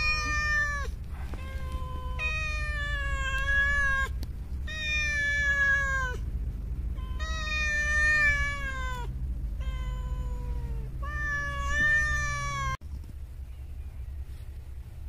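A cream-coloured cat meowing over and over: about seven meows, most of them long and drawn out and sliding down in pitch at the end, with a steady low rumble underneath. The meowing cuts off abruptly near the end.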